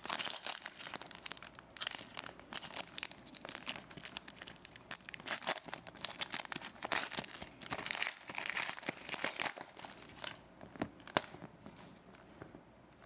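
Foil trading-card pack wrapper crinkling and being torn open, with irregular crackles and ticks as it is handled; the crinkling dies down about eleven seconds in.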